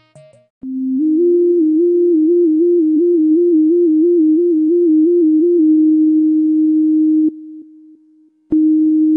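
Background film music: a single pure synthesizer tone trilling between two close pitches about two and a half times a second, then holding one steady note. It fades out about seven seconds in and comes back on a steady note just before the end.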